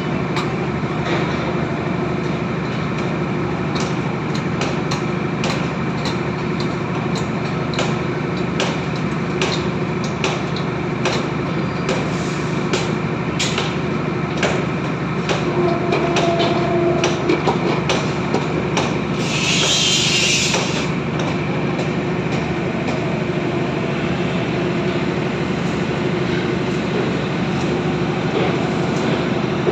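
Construction machinery running with a steady hum, while metal parts knock and clank irregularly throughout. A short burst of hiss comes about twenty seconds in.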